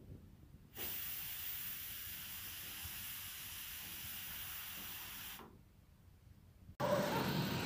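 Shyam pressure cooker's weight valve lifting and venting steam: a steady hiss for about four and a half seconds that starts suddenly and fades out. It is one of the 'whistles' counted to time the cooking.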